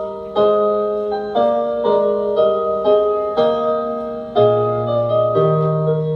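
Piano playing a slow passage of chords, a new chord struck every half second or so and left to ring and fade, with a low bass note joining about two-thirds of the way through.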